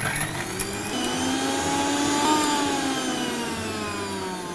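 Electric mixer grinder (mixie) motor whirring as it grinds sautéed beetroot with lemon juice into a soft chutney paste. The whine rises in pitch over the first two seconds, then slowly sinks as the blades work the load.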